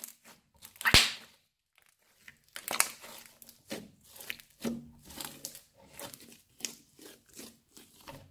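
Crunchy slime squeezed and pressed by hand, crackling and popping in a run of short squishes, the loudest about a second in; after a short pause the squeezes come about twice a second.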